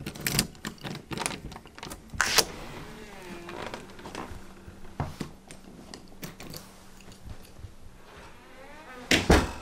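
A key rattling and clicking in a brass door-knob lock, then a wooden door being opened, with scattered clicks and knocks. A heavier thump comes near the end.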